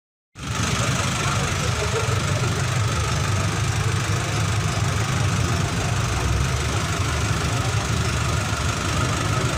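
Silent for the first moment, then a vehicle engine running steadily.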